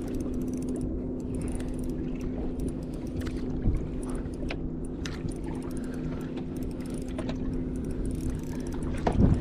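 Boat motor running at a steady, even-pitched hum, while a spinning reel's gears turn and click as a hooked fish is reeled in; a louder knock near the end.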